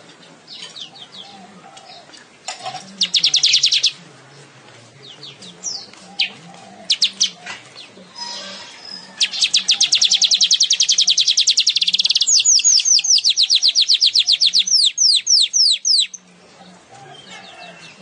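Songbird singing in fast trills: a short trill, a few scattered chirps, then a long rapid trill that slows into a series of falling notes before stopping about two seconds before the end.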